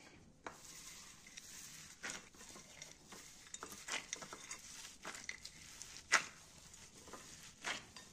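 Gloved hands kneading a sticky date and walnut mixture on a ceramic plate: faint, irregular clicks and taps as the mass and fingers press against the plate, the loudest about six seconds in.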